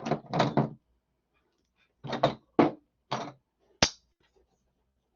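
Hand tools knocking and clunking as they are handled and set into a tool bag: several dull knocks, then one sharp click a little under four seconds in.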